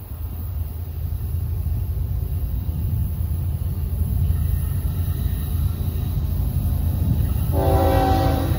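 Approaching Florida East Coast freight train: a low rumble grows steadily louder, then the lead diesel locomotive's air horn starts to blow near the end, the warning for the grade crossing ahead.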